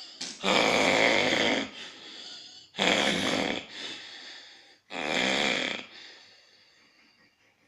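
Loud snoring: three snores about two seconds apart, each trailed by a softer sound, fading away near the end.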